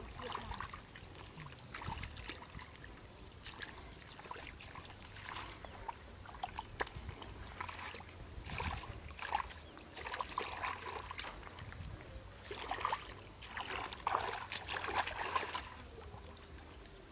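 Hands groping and sloshing in shallow muddy water, with irregular small splashes and trickles that come in clusters, busiest in the second half.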